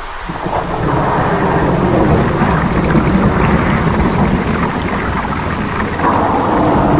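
Jungle ambience of heavy rain with a deep rumble like thunder, stepping up in loudness about six seconds in.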